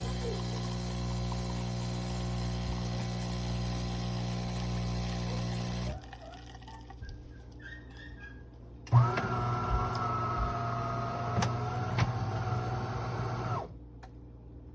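Fully automatic espresso machine (De'Longhi Magnifica Plus) running: a steady motor hum for about six seconds, then after a short quieter pause a thump and a second steady motor run of about four and a half seconds with a few clicks, ending abruptly.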